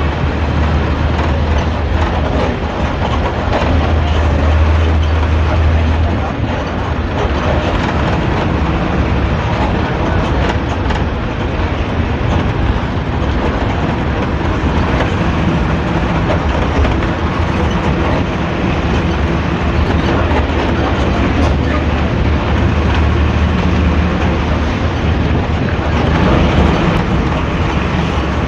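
Hino AK3-HR bus diesel engine and exhaust heard from the rear seats while the bus is under way: a deep, steady growling drone, the characteristic "ngorok" of this bus. It is a little louder about four seconds in and again near the end.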